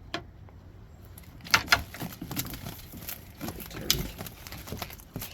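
Irregular sharp knocks and clatters, the loudest about a second and a half in and again near four seconds.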